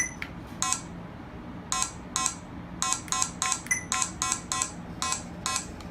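Radar detector alert beeps: a string of about a dozen short electronic beeps, irregularly spaced and bunched closer together in the middle, as the detector signals a RADIS radar gun.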